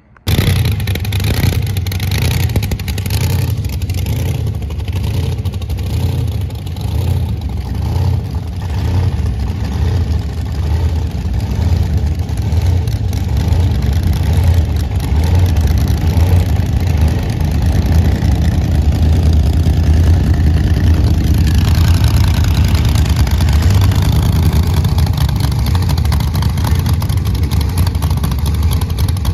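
Engines of custom hot-rod trucks running on a street: a steady, loud, deep rumble, with a little more rasp in the upper range from about 21 seconds in.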